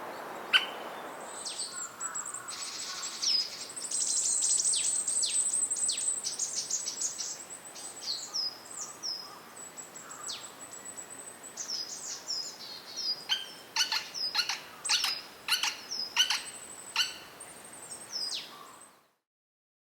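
White-backed woodpecker calling with sharp, high-pitched notes that fall quickly. About two seconds in they run together into a dense chatter for several seconds. From about 13 s they come as a dozen or so separate sharp calls, and the sound stops abruptly near the end.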